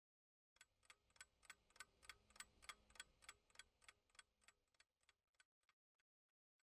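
Faint, steady ticking of a pocket watch, about three ticks a second, fading away near the end.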